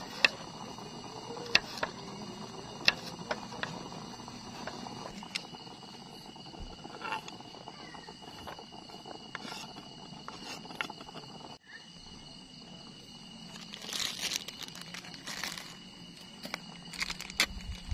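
Night insects giving a steady high-pitched trilling, with scattered sharp clicks and crinkling rustles close by, thickest about fourteen seconds in.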